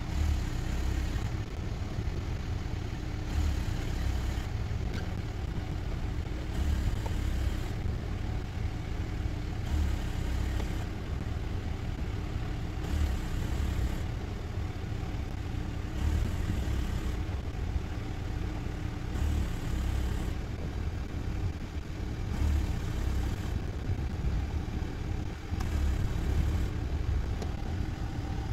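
Steady low outdoor background rumble with hiss, chopped into short spliced pieces about every second or two, so the hiss jumps abruptly at each join.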